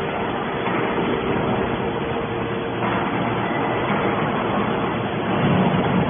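Hydraulic scrap metal baler running: a steady drone from its hydraulic pump and motor, with a faint steady hum.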